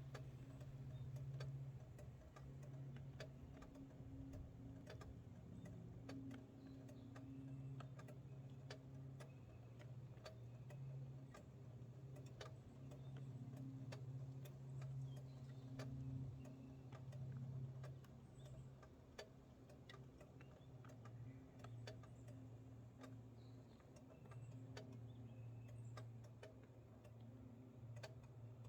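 Vespa GTS 300 Super Tech's single-cylinder four-stroke engine running with a low steady hum, overlaid by irregular sharp ticks and clicks: the abnormal noise the owner is recording.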